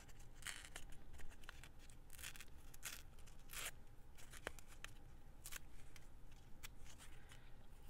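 Paper being cut with scissors and torn by hand: a string of short, irregular rasping strokes, faint, working toward a rough torn edge.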